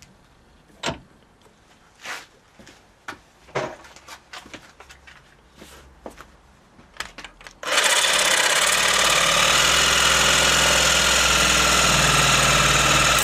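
A few small clicks and knocks of parts being handled, then a power tool starts abruptly near the middle and runs loud and steady for about five seconds, trimming off a bit of metal held in a steel vise.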